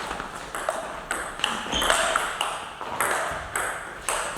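Table-tennis rally: the plastic ball clicking off bats and table in quick alternation, about two to three sharp pings a second.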